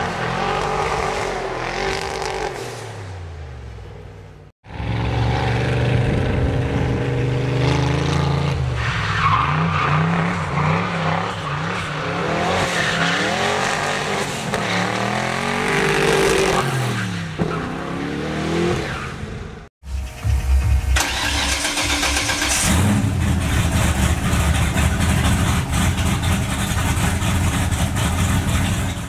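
Turbocharged Ford Windsor 302 V8 in a GAZ-24 Volga revving up and down hard as the car drifts, its note rising and falling over and over. After a cut about two-thirds through, an Opel X25XE V6 swapped into a Moskvich 412 runs with a steadier note.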